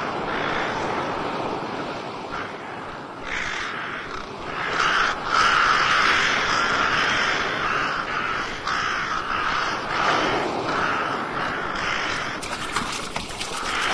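Harsh, crow-like bird cries, repeated over and over.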